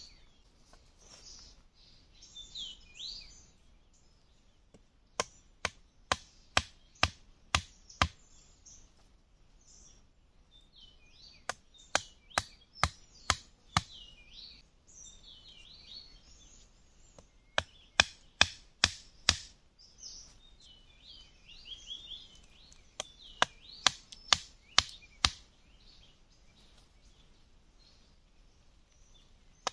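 A machete striking bamboo stakes in runs of sharp knocks, about two a second, with pauses between the runs. Birds chirp in the pauses.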